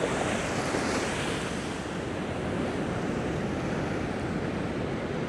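Pacific surf washing in on a sand beach: a steady rush of breaking waves, with some wind on the microphone.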